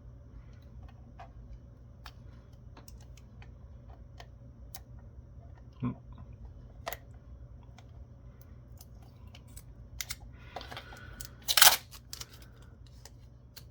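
Hands handling a small plastic network camera during a teardown: scattered light clicks and taps, with a brief louder burst of handling noise near the end, over a steady low hum.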